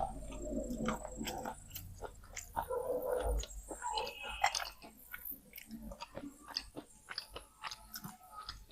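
Close-up crunching and chewing of wet slate pencil: a quick, irregular run of sharp crunches and clicks as the soft slate is bitten and ground between the teeth.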